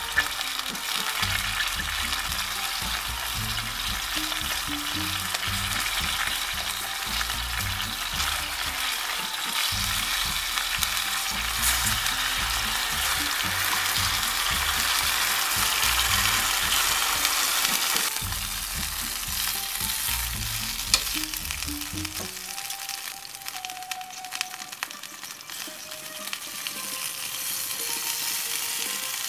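Rabbit legs and sliced onions sizzling in oil in a stainless steel pot. The sizzle grows louder for several seconds once white wine is poured in, then eases.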